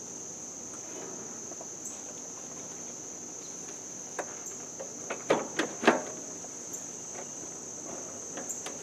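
Steady high-pitched chorus of crickets, with a few sharp clacks and knocks about halfway through as a plastic tractor housing is worked back into its slots.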